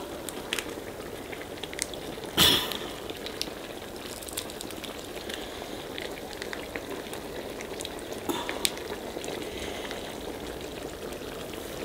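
Large pot of chicken biryani boiling on a gas stove: a steady bubbling with small pops as the rice and chicken cook down in their stock, with ghee poured in on top. A brief knock about two and a half seconds in and a smaller one a little after eight seconds.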